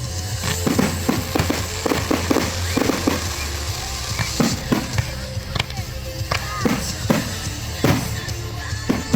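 Fireworks finale: aerial shells bursting in quick succession, a dense run of sharp bangs in the first few seconds and then more spaced ones, over music with a steady low bass.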